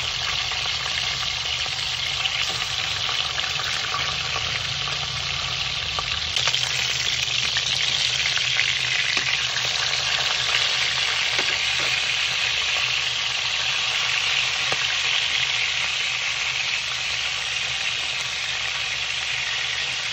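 Chicken pieces sizzling steadily in hot oil in a stainless steel pot, with a few light clicks of metal tongs against the pan as the pieces are turned.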